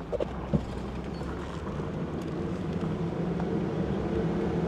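A vehicle engine running steadily as it drives along a paved road, growing a little louder, with a couple of short knocks in the first second.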